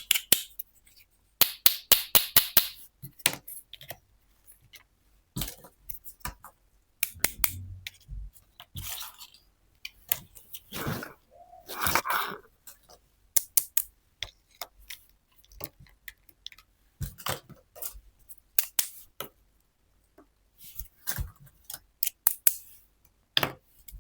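Small miniature toy kitchen pieces being handled: irregular sharp clicks, taps and light clinks in quick clusters, with a few short stretches of rustling.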